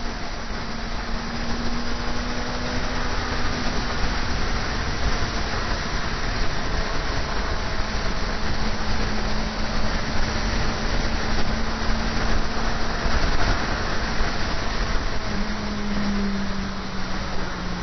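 Motorcycle engine running at a fairly steady pitch under heavy wind and road rush on the onboard camera; its note falls near the end.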